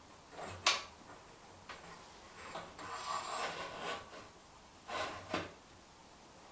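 Bicycle headset and fork parts being handled and fitted dry onto the frame: a sharp click just under a second in, a scraping rub a few seconds in, then a couple of knocks near the end.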